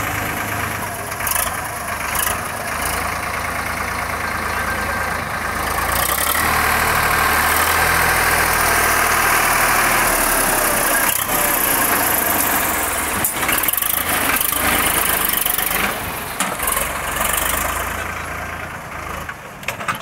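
ACE 550 NG tractor's diesel engine running while the backhoe digs soil. The engine gets louder and works harder in the middle as the hydraulics take the load, with a few knocks from the backhoe in the second half.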